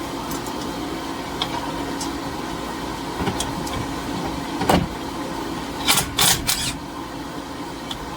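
Impact wrench loosening a 13 mm brake caliper bolt in a few short, loud bursts about six seconds in, over a steady background hum. A sharp tool knock comes a little before.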